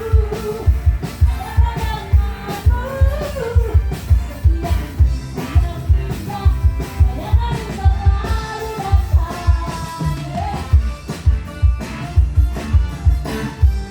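Live band running through a dangdut-style song at a sound check, a woman singing the melody over a steady, heavy drum beat.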